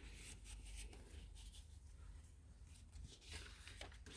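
Faint rustling and light handling of paper pages in a handmade junk journal, with soft scattered rustles over low room hum.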